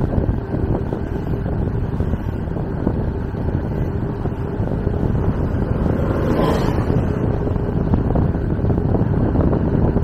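Wind buffeting the microphone while riding an electric bicycle uphill, a steady low rush. About six seconds in, an oncoming coach bus passes close by with a brief swell of engine and tyre noise.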